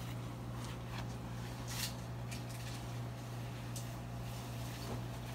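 Room tone in a small room: a steady low hum with a few faint clicks.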